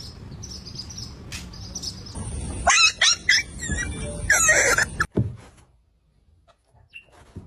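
A dog barking several times, with loud bursts between about two and five seconds in.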